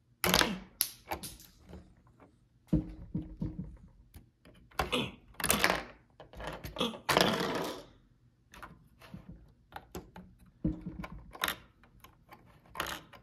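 LEGO minifigures and plastic bricks being handled and pressed onto a baseplate's studs: bursts of sharp plastic clicks and knocks, in about half a dozen clusters.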